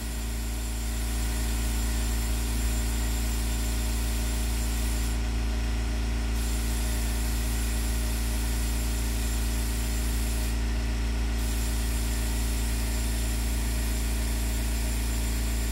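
Air compressor running steadily while a tire is inflated to about 30 psi, a constant hum with a high hiss that drops out briefly twice.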